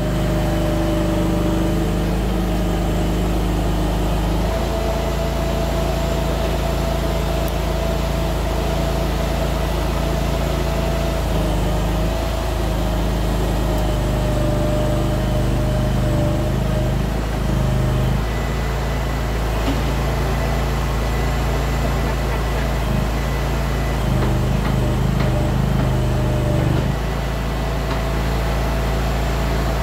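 Kanga mini loader engine running steadily while the machine is worked, its note shifting a few times as it is driven back and forth.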